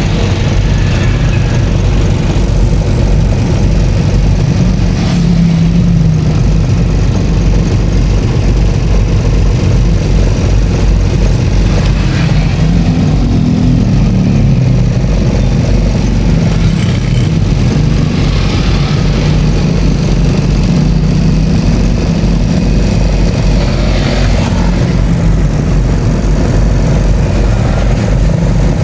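Vehicle engine running on the move, its pitch rising and falling with speed, over a heavy steady road and wind rumble.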